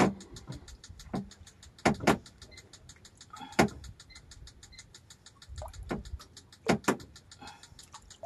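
Sharp knocks and clicks of fishing tackle handled against a wooden boat as a baited two-hook bottom rig with cut-fish bait is lowered over the side, with a faint fast ticking underneath.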